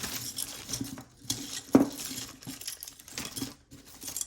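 Metal costume jewelry clinking and rattling as pieces are handled and set down, with a louder knock a little under two seconds in.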